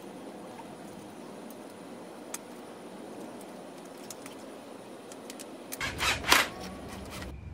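Faint metallic clicks from a dirt bike's rear wheel being handled and worked into the swingarm to line up the axle, then a short, louder burst of scraping and clattering about six seconds in.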